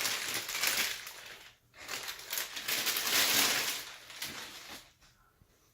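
Packing material crinkling and rustling as a heavy statuette is unwrapped and lifted from its box, in two stretches: one trailing off about a second and a half in, and a louder one from about two seconds in that dies away near the end.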